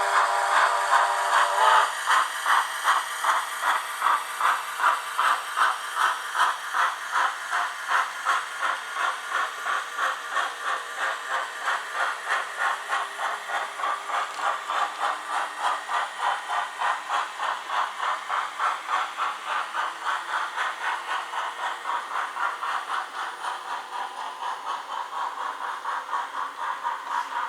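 Sound decoder of an Ixion J class model steam locomotive: a steam whistle that ends about two seconds in, then a steady run of exhaust chuffs with hiss, about two to three a second, slowly getting a little quieter.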